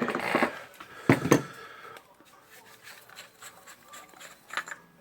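Metal parts of a disassembled pneumatic rivet nut tool being handled: two sharp knocks about a second in, then light clicks and rubbing.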